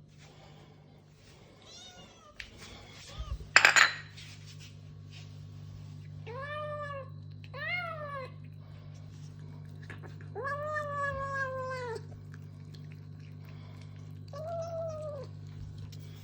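Kitten meowing while it eats: four drawn-out, arching calls in the second half, the longest lasting nearly two seconds. A sharp clatter comes a few seconds in, and a steady low hum runs underneath.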